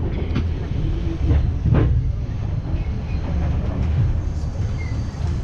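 Passenger train running on the rails: a steady low rumble with a few sharp knocks from the wheels and carriages.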